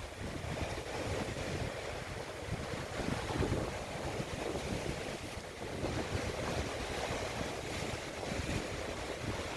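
Wind buffeting the microphone in uneven gusts over a steady wash of waves.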